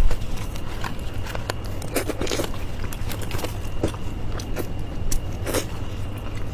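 Close-miked biting and chewing of clay-oven roasted chicken, with irregular crackles and crunches over a steady low hum.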